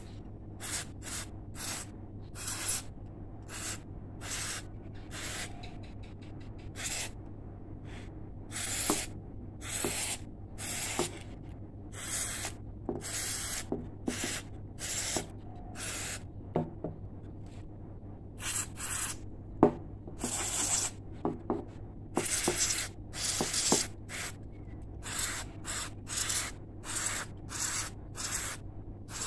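Aerosol can with a thin red straw spraying a valve radio's circuit board to clean it, in about thirty short hissing bursts, a few held for a second or more, over a steady low hum.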